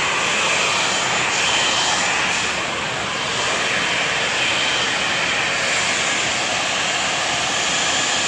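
Jet airliner turbine running steadily: a constant rushing noise with a thin, high whine over it.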